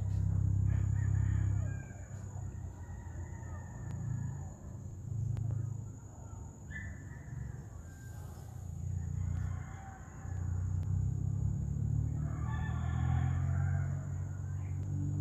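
A rooster crowing a few times, the longest call near the end, over a steady low rumble that is louder at the start and in the second half.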